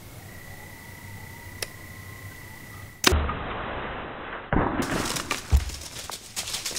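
A Prime Rize compound bow shot: a sudden sharp crack of the string release about three seconds in. About a second and a half later the hit whitetail buck bolts, with a run of crackling rustles and low thumps as it runs off through the dry leaves.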